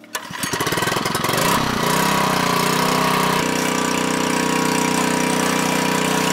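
An engine starts up, rises in pitch over the first two seconds as it comes up to speed, then runs steadily.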